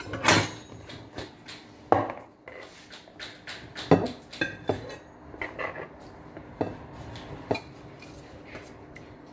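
Hard objects knocking and clinking together in an irregular clatter, with several sharp knocks that ring briefly, the loudest about two seconds apart near the start.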